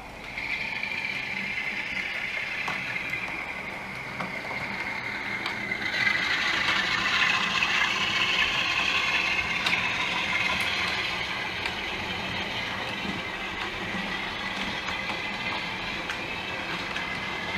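OO gauge model freight train running past, the wagons' wheels rumbling and clicking over the track; it gets louder about six seconds in as the wagons pass close.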